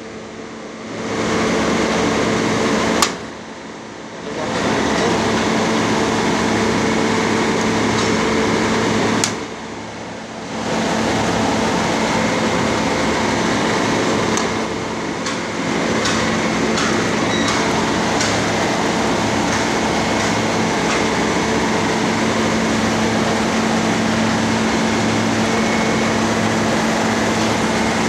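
Refrigeration condensing unit running with a steady electrical hum and fan noise. A few light clicks and metal taps come from tools handled on the compressor housing. The hum drops away briefly about three times.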